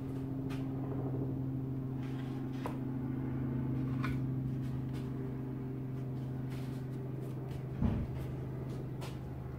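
A steady low machine hum, with a few light clicks and a short thump about eight seconds in.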